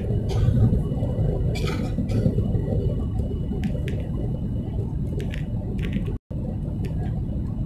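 Steady low rumble of cabin noise inside a Boeing 737 MAX 8 on its landing approach: the CFM LEAP-1B engines and the airflow over the fuselage. A few faint short ticks sound over it, and the sound cuts out for a moment about six seconds in.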